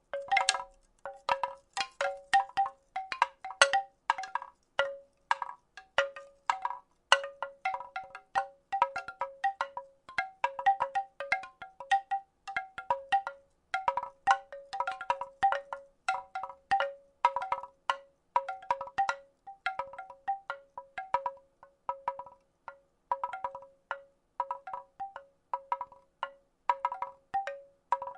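Wooden rattle being shaken: unevenly spaced wooden clacks, about two or three a second, each with a brief ringing tone.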